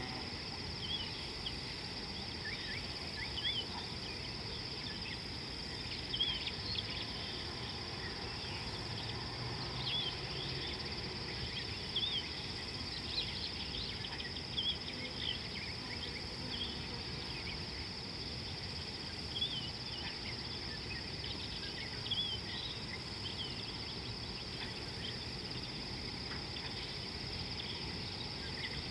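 Steady high-pitched insect drone, with short chirps scattered irregularly over it.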